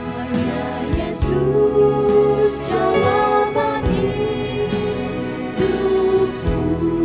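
A small mixed vocal group of women and a man singing a Malay gospel worship song in harmony, holding long notes over instrumental accompaniment.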